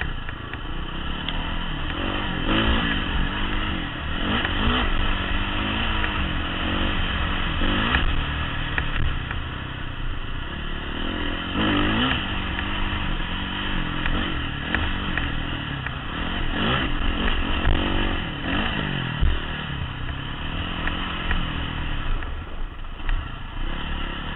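Honda CRF450 dirt bike's single-cylinder four-stroke engine revving up and down under throttle changes while riding over rough dirt, picked up by a helmet camera, with clattering knocks from the bumps.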